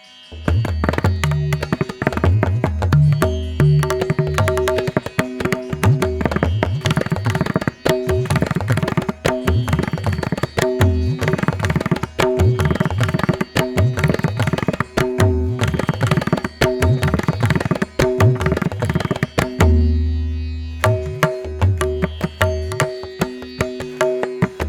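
Background Indian classical-style instrumental music: rhythmic tabla-like drumming over a steady held drone.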